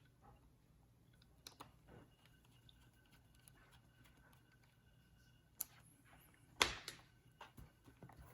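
Hands working on a laptop: faint scattered clicks and taps on its plastic keys and case, with a louder clatter about six and a half seconds in.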